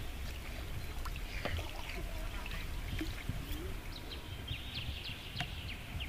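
Riverside outdoor ambience: a steady low rumble with scattered short bird chirps and ticks, and faint distant voices.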